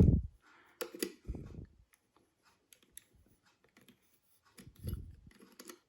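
Faint, sparse clicks and light taps of a small Phillips screwdriver and the doorbell's plastic parts being handled while a tiny screw is undone.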